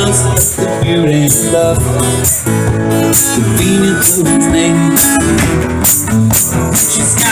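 Acoustic guitar music played live through a PA speaker, with a steady beat of shaker- or tambourine-like percussion.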